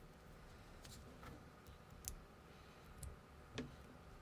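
Plastic LEGO-compatible minifigure parts clicking as they are handled and pressed together: a few faint, separate snaps, the sharpest about two seconds in.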